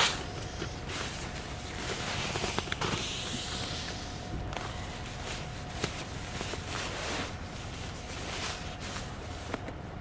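Nylon stuff sack rustling and crinkling as it is handled, folded and rolled up, with a louder swish of fabric about two to four seconds in, and soft shuffling and knocks on the sleeping pad. A faint steady high tone runs underneath.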